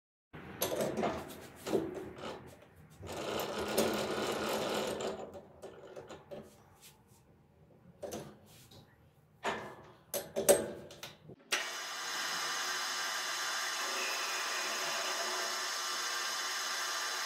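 Handling noise and several sharp knocks as a steel bar is clamped into a metal lathe's three-jaw chuck. About 11 seconds in, the lathe starts and runs steadily, spinning the bar in the chuck.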